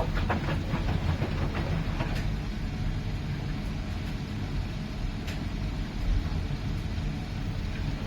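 Miele PW 6080 commercial washing machine running: a steady low rumble from the turning drum with scattered clicks and knocks.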